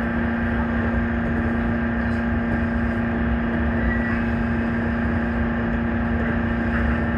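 JR Kyushu 813 series electric train running at a steady speed, heard from inside the driver's cab: a low rumble of wheels on rail with a steady, unchanging hum over it.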